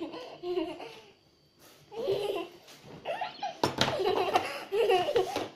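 A young girl laughing in repeated bursts, with a short pause early on and louder, more continuous laughter in the second half.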